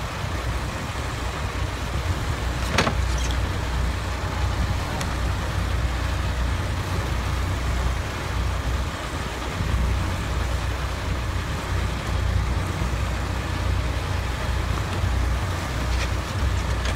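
A sport-fishing boat underway: a steady low engine rumble under the hiss of rushing water and wind. One sharp click about three seconds in.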